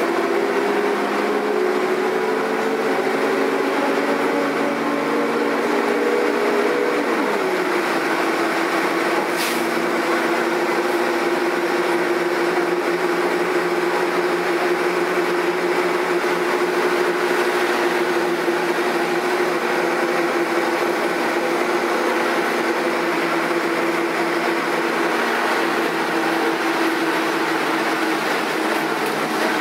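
Karosa B941 articulated city bus's diesel engine pulling under load. Its pitch rises slowly for about seven seconds, then drops at a gear upshift and runs nearly steady, dipping again near the end. A single sharp click about nine seconds in.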